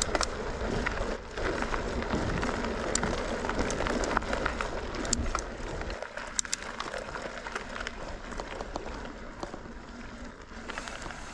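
Mountain bike rolling over a rough dirt and rock trail: tyre noise with frequent rattles and clicks from the bike, and wind buffeting the camera microphone. It grows quieter about six seconds in, though the clicks go on.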